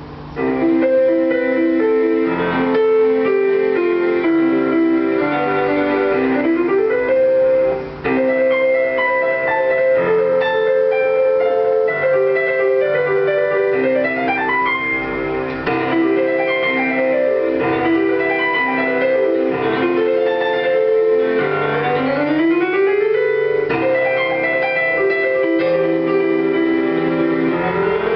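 Solo piano playing a lyrical piece over sustained chords, with fast upward runs that sweep up the keyboard several times.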